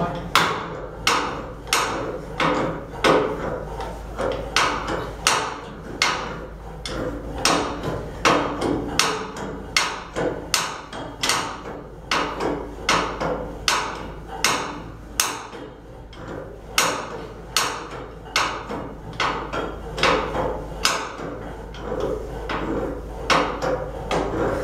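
Repeated hammer blows on a steel boiler stay tube, about two a second, driving it through the tube plate of a Cochran boiler.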